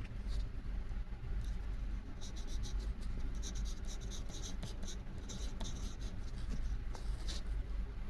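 Pen scratching in quick strokes while sketching a fan motor wiring diagram, heard over a low steady room hum. The strokes grow busier about two seconds in.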